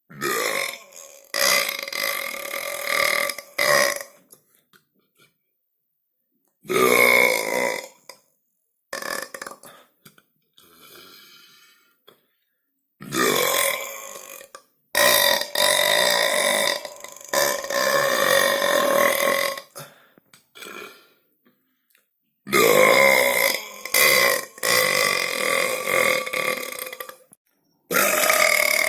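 A series of loud human belches, one after another with short silent gaps; some are short, others run on for several seconds.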